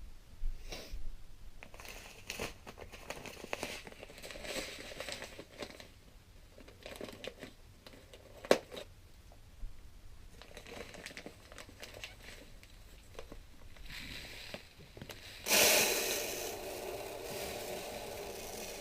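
Plastic packaging of a bag of aquarium sand crinkling and tearing as it is handled and opened. Near the end, sand begins pouring out into the tank in a sudden, steady rush.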